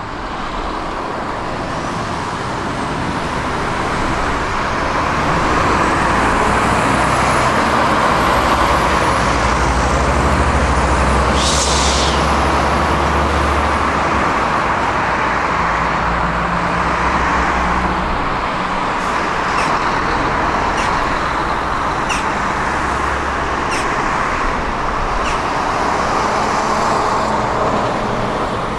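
A tram, heard from inside, pulls away from a stop and gathers speed. A high motor whine glides up and down in pitch while it accelerates, over a steady rumble from the wheels on the rails. A brief hiss comes about twelve seconds in, and a series of sharp clicks comes later as it runs on.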